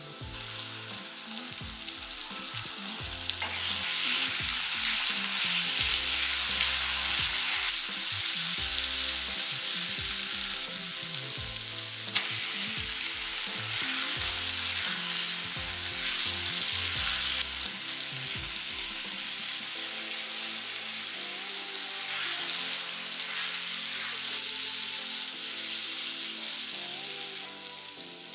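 Onion, garlic paste and chopped tomato masala sizzling in hot oil in a nonstick kadai while it is stirred with a spatula: the frying of the onion-tomato base for a chicken bhuna masala. The sizzle grows louder a few seconds in and eases somewhat in the last third.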